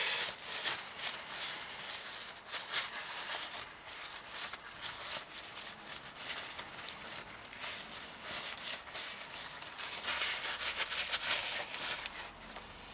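Turbocharger variable-geometry vane ring and back plate being rubbed and twisted by hand in paint thinner to loosen soot: irregular small metal clicks and scraping, busier about ten seconds in.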